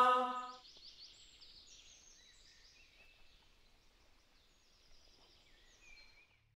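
Background music with plucked strings cuts off about half a second in. Near silence follows, broken by faint, short high chirps here and there.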